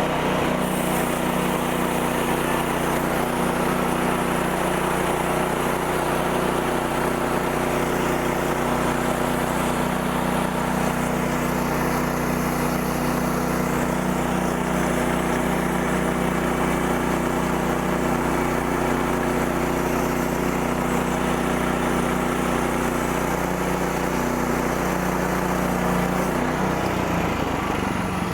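Woodland Mills HM126 sawmill's gas engine running steadily at an even speed.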